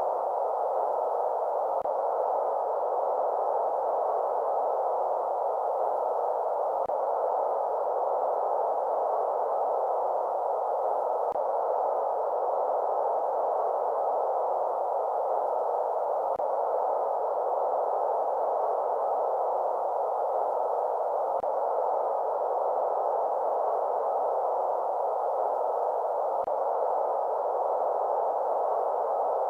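Steady synthetic white noise for sleep, an even hiss narrowed to the middle range. A faint tick comes about every five seconds, typical of a looped track.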